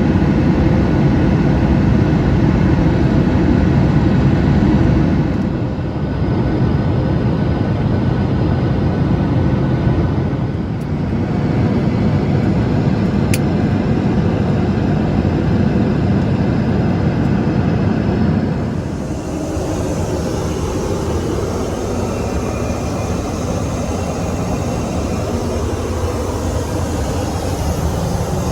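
Steady cabin noise of a Boeing 737 MAX 8: the drone of its CFM LEAP-1B jet engines and the rush of air around the fuselage, heard from inside the cabin. The sound shifts abruptly a few times, about five, ten and nineteen seconds in.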